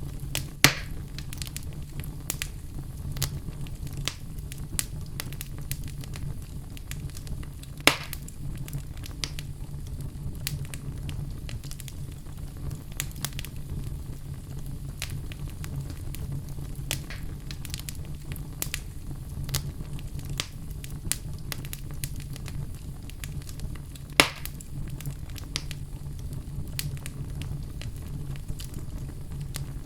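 Crackling fire: a steady low rumble with frequent small crackles, and three loud sharp pops about a second in, about eight seconds in and near twenty-four seconds.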